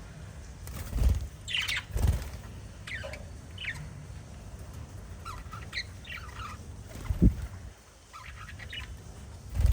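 Small pet parrots chirping in short, scattered calls, with a few dull low thumps, the loudest sounds, about a second in, two seconds in, around seven seconds and at the end.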